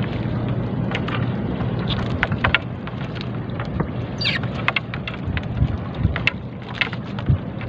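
Wet nylon trammel net being hauled by hand into a wooden boat: water drips and patters off the mesh with many small crackles and splashes. A low steady hum runs underneath, and a brief high squeak comes about four seconds in.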